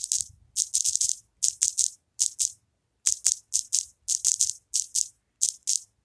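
A quick, uneven run of short, hissy, rattle-like ticks, about three or four a second, falling in small clusters with brief gaps between.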